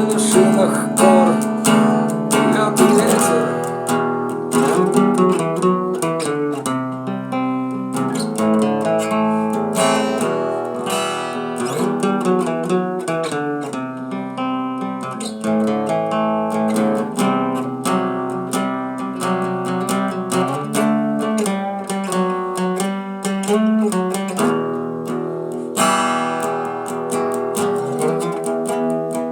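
Acoustic guitar playing an instrumental passage of picked and strummed chords.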